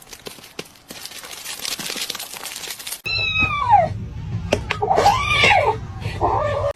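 A cat meowing several times: one falling meow just after three seconds in, then a few rising-and-falling meows, over a steady low hum. Before that, a noisy hiss with small clicks.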